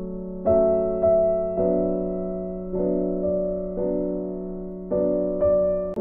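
Background music: soft piano chords, a new chord struck about once a second and fading before the next.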